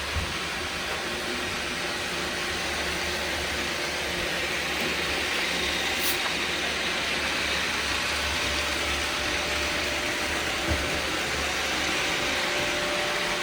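Several robot vacuums running at once: a steady whir of suction motors and brushes with a few faint steady tones.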